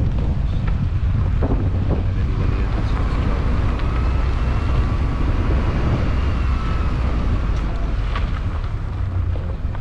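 Wind buffeting the microphone over a steady low rumble from a slow-moving car. A faint whine rises and falls in the middle, along with a few light clicks.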